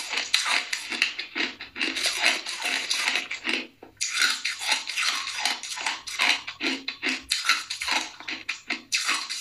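Close-up crunching of shaved ice and freezer frost being chewed: rapid, dense crackling crunches, with a short pause a little before halfway as the next spoonful goes in.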